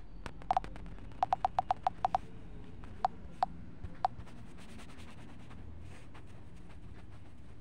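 Sharp taps on a touchscreen while handwriting is erased from a drawing app, stroke by stroke. A pair of taps comes first, then a quick run of about eight, then three single taps over the next two seconds, over a low steady background hum.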